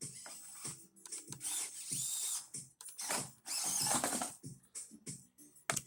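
Axial SCX24 micro RC crawler's small electric motor and gears whining in short stop-start bursts of throttle, the pitch rising and falling, as the truck struggles on the course.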